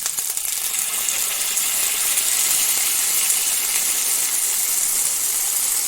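Ginger-garlic and dried-chilli paste frying in hot sesame oil in a pan: a steady, hard sizzle.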